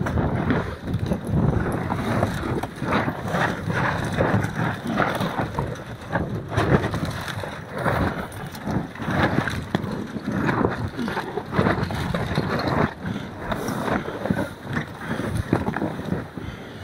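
Wind and water noise aboard a sailboat in rough water: wind buffeting the microphone, waves rushing along the hull, and a loose jib flapping in irregular gusts.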